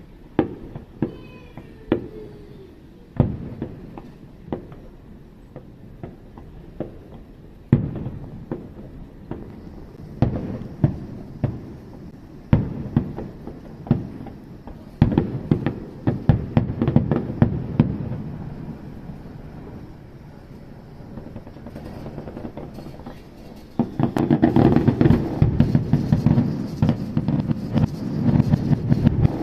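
Fireworks going off: scattered sharp bangs with a few whistling glides near the start, then a dense, loud run of crackling bangs near the end.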